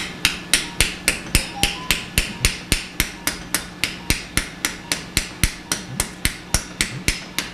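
Surgical mallet tapping a suture anchor inserter, driving the suture anchor into the bone of the shoulder. The strikes are quick and even, about three or four taps a second, and keep going throughout.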